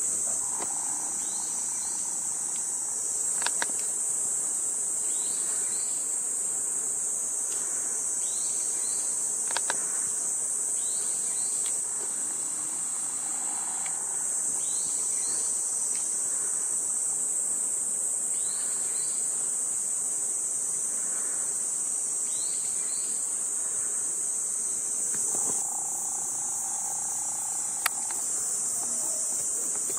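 A steady, high-pitched chorus of insects, with short rising chirps repeating every second or two and a few sharp clicks.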